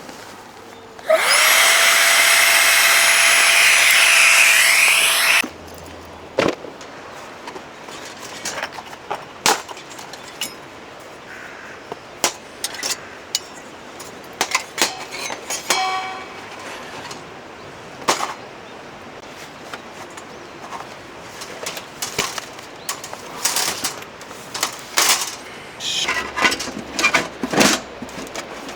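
A small electric power tool whose motor spins up with a rising whine and runs loudly for about four seconds, then stops suddenly. After that come scattered knocks and clatter, like wood being handled.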